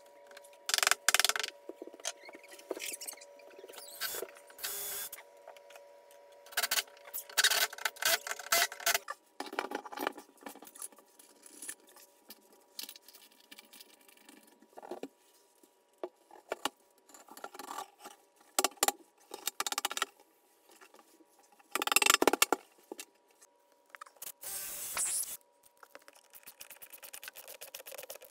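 Intermittent scraping, rubbing and knocking from hand work: a wood block pushed into a wall opening and a porcelain wall-mounted sink handled against the wall. Near the end comes a rapid, even run of clicks as a threaded bolt is turned into a wall stud.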